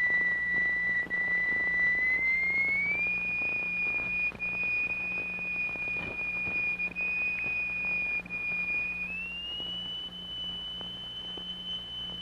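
A steady, pure, whistle-like test tone, the kind used to set a plate vibrating so that sand forms a sonorous figure. It glides up to a higher note about two and a half seconds in and again near nine seconds, over a faint low hum.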